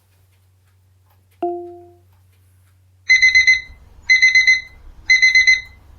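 Alarm-clock sound effect played by an Amazon Alexa smart speaker: groups of four or five rapid, high electronic beeps, repeating about once a second from halfway in, after a single short lower tone about a second and a half in.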